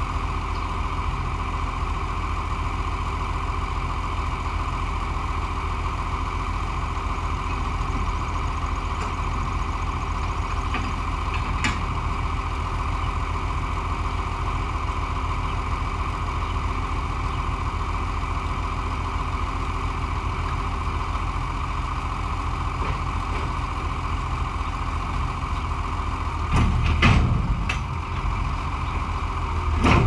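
Farm tractor engine running steadily at a constant speed, with a short burst of clunks and rattles near the end.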